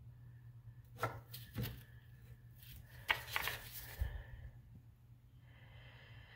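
A few light knocks and rustles of handling, from a gloved hand moving on the plastic drain pipe and bracket, over a low steady hum.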